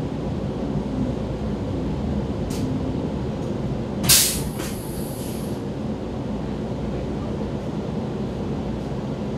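Vienna U-Bahn U2 train heard from inside the car: a steady low rumble, with a faint click a little after two seconds in and a brief loud hiss about four seconds in.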